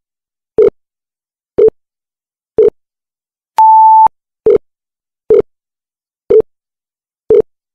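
Countdown timer sound effect: short, low beeps about once a second, with one longer, higher beep about three and a half seconds in, and dead silence between them.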